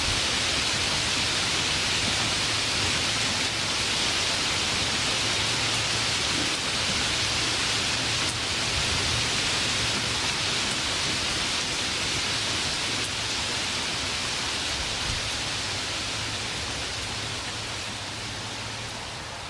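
Steady rain falling, a dense even hiss with no thunder, fading out gently near the end.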